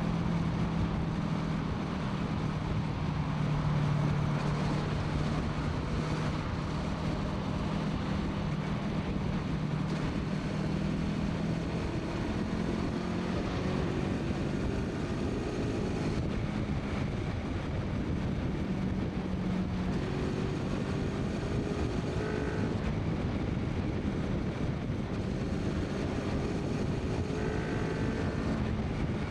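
2014 Honda VFR800F's V4 VTEC engine running through its full exhaust system. The note holds steady at first, then climbs several times in the second half.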